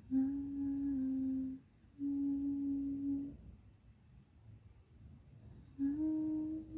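A person humming three long, steady notes with short quiet gaps between them, the first stepping down slightly in pitch partway through and the last starting near the end.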